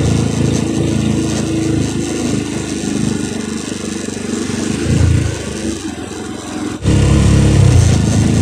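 Motorcycle engine running at low speed in city traffic, heard from the rider's seat, with a brief swell about five seconds in. After a sudden change about seven seconds in it runs louder and steadier.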